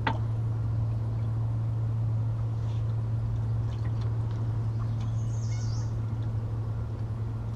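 A steady low hum throughout, with a sharp click at the very start and a bird chirping briefly about five seconds in.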